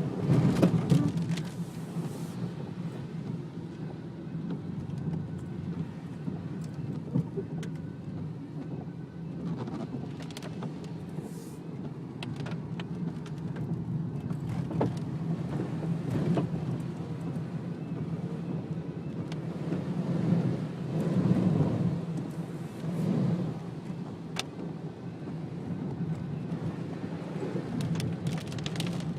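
Car driving in heavy rain, heard from inside the cabin: a steady low engine and road hum with the hiss of rain and wet tyres, swelling louder about a second in and again around 21 seconds in.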